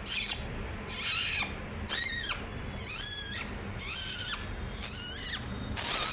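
Pet parrot giving a run of short, high, screechy calls, about one a second, some rising or falling in pitch.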